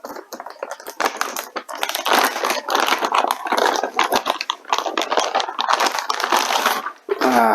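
Plastic packaging crinkling and rustling as a graphics card is unsealed and unwrapped: a dense, irregular run of crackles that stops about seven seconds in.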